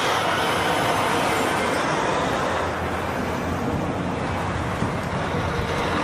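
Tractor-trailer trucks driving by, a steady rush of diesel engine and tyre noise.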